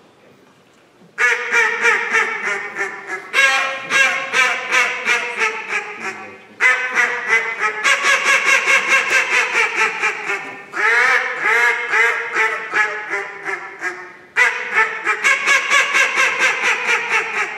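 Duck call blown to imitate a live duck: long runs of quick quacks, about four a second, starting about a second in, broken into several sequences by short pauses.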